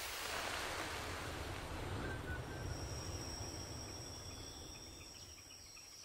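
Forest ambience: a soft, even hiss fades away over the first few seconds. From about halfway, insects trill steadily at a high pitch.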